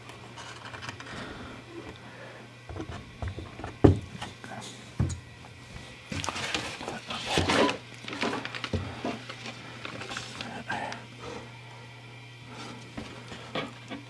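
Half-inch plywood panels being handled and fitted together on a workbench: a sharp knock about four seconds in, then a run of wooden bumps and scrapes as a castle side panel is lifted and set against the others, over a steady low hum.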